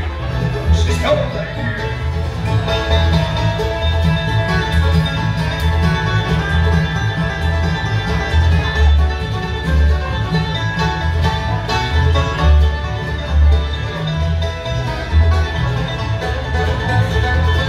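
Bluegrass band playing an instrumental passage live, without singing: upright bass plucking steady notes on the beat under acoustic guitar, picked strings and fiddle.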